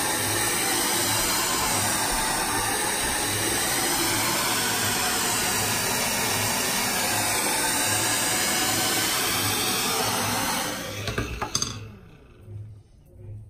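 DryBar Buttercup hair dryer running steadily as it blows on hair, then switched off about eleven seconds in, its rush of air dying away with a few clicks.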